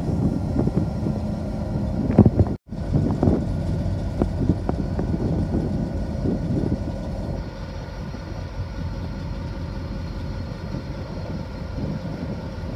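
Watco Australia WRA-class diesel locomotive engine idling with a steady low rumble. The sound drops out completely for a moment about two and a half seconds in.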